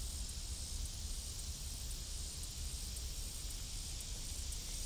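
Rural outdoor ambience: wind rumbling on the microphone under a steady high hiss, with no train or other distinct event.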